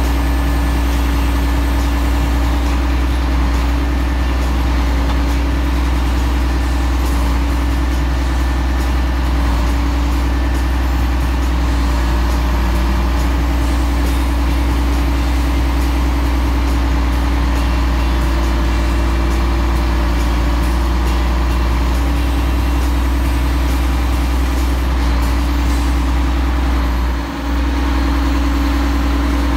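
Mack Superliner log truck's diesel engine running steadily through its loud exhaust stacks while it powers the truck-mounted hydraulic log loader, a deep constant hum with a steady drone over it. The sound dips briefly about two seconds before the end.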